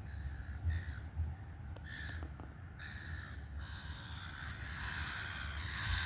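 Birds calling harshly and repeatedly, each call about half a second long. About halfway through the calls run together into more continuous, louder calling. A low steady rumble runs underneath.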